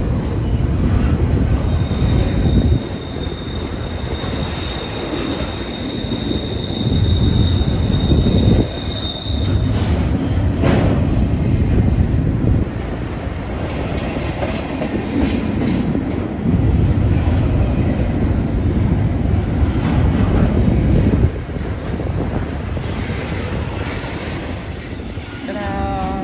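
Intermodal container train's cars rolling past: a loud, continuous rumble of steel wheels on rail that swells and eases as the cars go by. A thin, high, steady wheel squeal runs from about two seconds in for some seven seconds.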